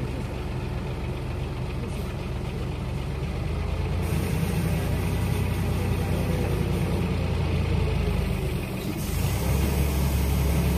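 Diesel engine of a Tadano rough-terrain crane running steadily as the crane sits on a lowbed trailer's ramp. The engine gets louder about four seconds in, dips briefly near nine seconds, then picks up again.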